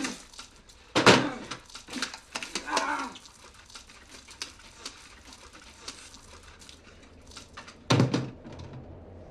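A man's drawn-out, pitched groans: one about a second in, another around three seconds, and a loud one near the end, over scattered clicks and knocks.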